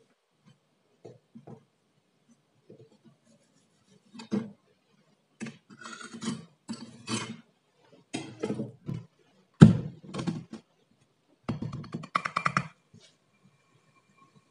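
Knife scraping and cutting crumbly kinetic sand in a steel mug, then a single loud thunk as the mug is turned over onto the table, followed by a quick run of taps on the mug that ring faintly.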